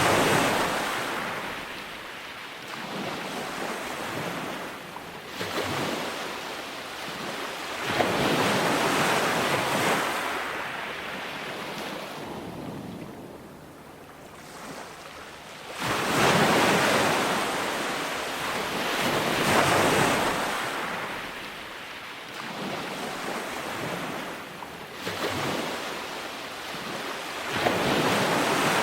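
Ocean waves breaking on a beach and washing back, swelling and fading every few seconds, with a longer lull around the middle.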